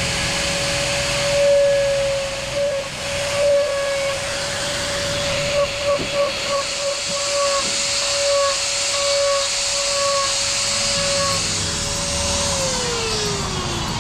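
A high-speed electric motor whining at one steady pitch over a rushing hiss, winding down with a falling pitch in the last second and a half.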